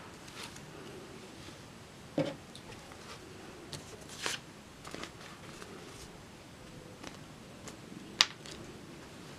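Hands handling and unfolding a cotton T-shirt with a sheet of paper on a wooden table: soft fabric and paper rustling, with a thump about two seconds in and a sharp click about eight seconds in, the loudest sound.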